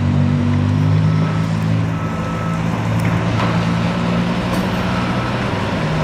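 Diesel engine of an Oshkosh front-discharge concrete mixer truck running steadily at an even low pitch, with a few faint knocks from the work site.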